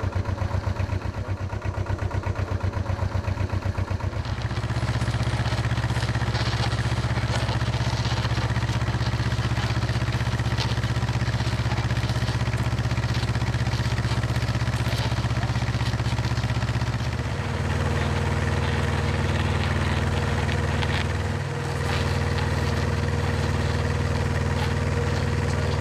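Dando Terrier drilling rig's engine running: a fast, even pulsing for the first few seconds, then it picks up and runs steadily louder. Its note changes about two-thirds of the way through, with a brief dip a few seconds later.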